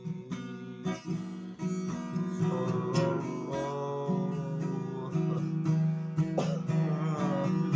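Acoustic guitar being strummed, chords played in a steady rhythm.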